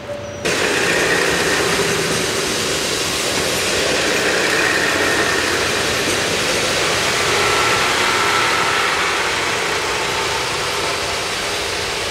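Diesel express train running, a loud steady noise with faint tones that drift slowly in pitch; it cuts in suddenly about half a second in.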